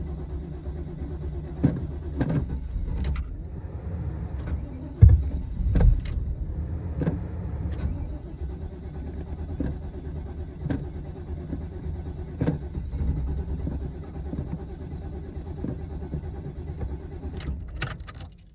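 A truck engine idling steadily, with occasional sharp clicks over the rumble. Near the end there is a brief jingle and the engine cuts off abruptly.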